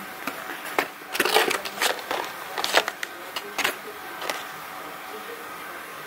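Paper and plastic packaging rustling and crinkling as a hand rummages through a cardboard delivery box: a string of irregular rustles that stops about four seconds in.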